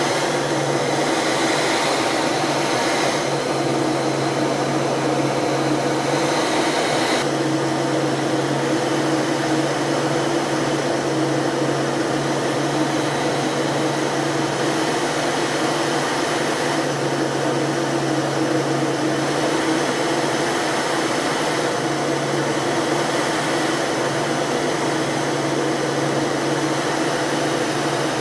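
Aircraft cockpit noise in flight: a steady rush of air and engine drone with a constant low hum, heard from inside the aircraft.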